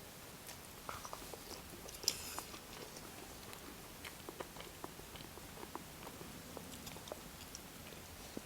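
A person chewing and biting fried chicken: a run of small irregular mouth clicks and crunches, the sharpest crunch about two seconds in.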